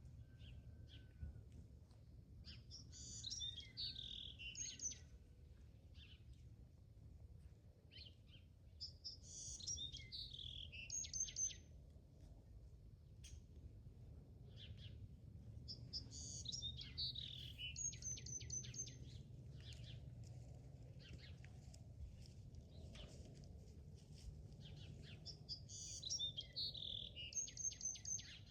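A songbird singing the same short phrase four times, about every six to seven seconds: a run of quick notes sliding downward, ending in a fast high trill. A low, steady rumble of outdoor background noise lies underneath.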